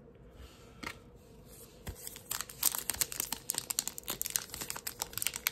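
Foil wrapper of a Topps Big League Baseball card pack crinkling and tearing as it is handled and ripped open, a dense crackle that starts about two seconds in after a couple of light taps.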